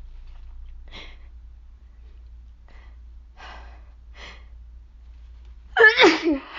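A sick woman with a failing voice breathing in a few faint, short breaths, then near the end a sudden loud, voiced, breathy burst of breath with two peaks, as when straining to sneeze.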